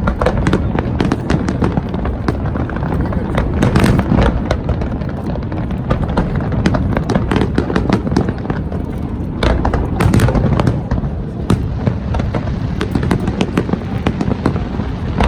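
Fireworks going off in quick succession: a dense string of sharp cracks and pops over continuous low booming, with heavier bursts about four and ten seconds in.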